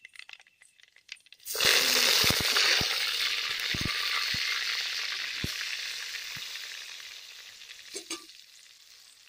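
Hot sesame oil in a clay pot sizzling loudly as ingredients are dropped in about a second and a half in, with a handful of sharp pops over the next few seconds. The sizzle then fades slowly as the oil cools under the added food.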